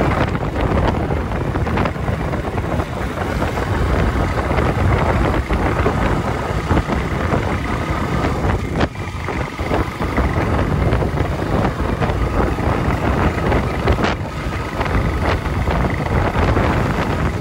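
Wind buffeting the microphone while riding a Royal Enfield Himalayan, with the single-cylinder motorcycle's engine and road noise underneath in a steady rush. A couple of brief knocks come through partway along.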